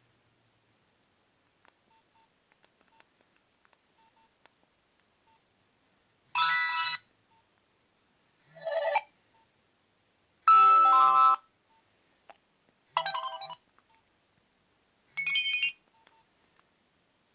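Nokia 2760 mobile phone loudspeaker playing five short electronic tone melodies, each under a second to about a second long and about two seconds apart. Faint clicks come before them.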